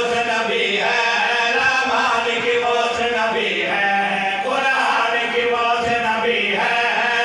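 Men's voices chanting a nauha, a Shia mourning lament, together through microphones in one continuous, wavering melody.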